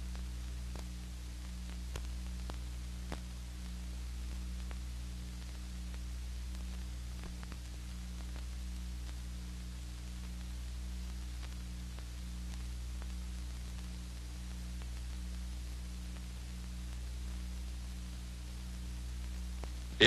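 Steady low hum and hiss of an old 1940s film soundtrack, with scattered faint clicks.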